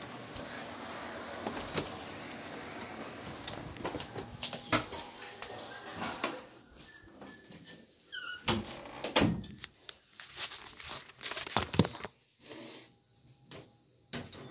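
Handling noise from a phone being carried and moved about: a steady rustle at first, then scattered knocks and clicks, the loudest about five, nine and twelve seconds in.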